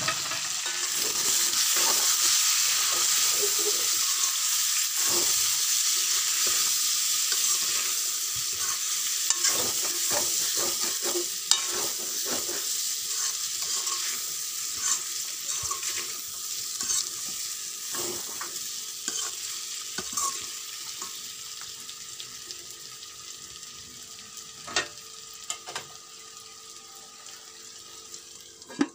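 Pork pieces sizzling as they fry in oil in a metal wok, stirred with a metal ladle that scrapes and clinks against the pan. The sizzling grows gradually quieter.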